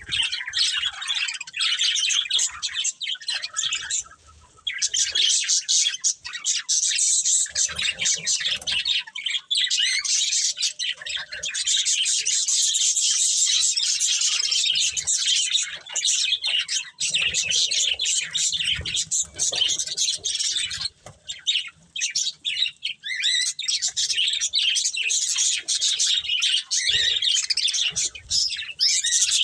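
Budgerigars chirping and chattering, a dense run of rapid high chirps that carries on almost without pause.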